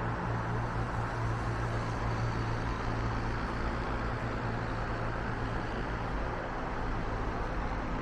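Steady road-traffic noise of cars driving: an even rushing hiss of tyres over a constant low hum.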